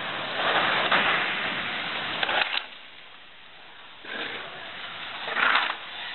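Skateboard wheels rolling through a concrete bowl, a steady rushing noise that drops away about two and a half seconds in and comes back around four seconds, with a short, louder burst near the end.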